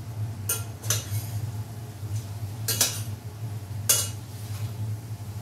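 A cooking utensil clinking against a metal pan while food is stirred: a few sharp clinks spaced unevenly, over a steady low hum.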